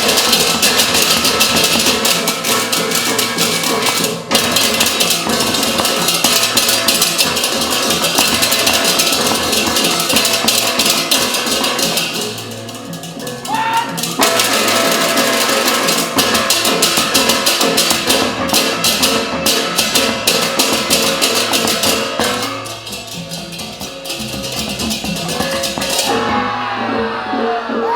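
Balinese gamelan ensemble playing a fast, dense piece of pitched metal percussion, drums and clashing cymbals. It eases down briefly about twelve seconds in and again around twenty-three seconds, and the clashing top drops away near the end as the piece winds down.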